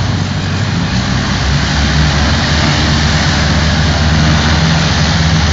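Hovertravel passenger hovercraft running its engines and propellers as it moves off the slipway: a loud, steady low hum under a broad rush of air.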